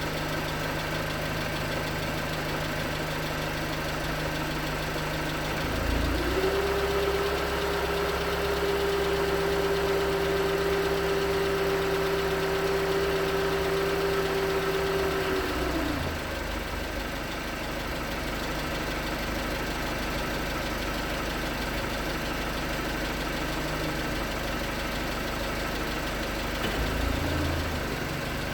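2019 Hyundai Tucson's 2.0-litre Nu GDI four-cylinder engine running cold with a knocking that the owner takes for piston slap. About six seconds in the engine speed rises and holds for about ten seconds, then falls back to idle, with a short rev near the end.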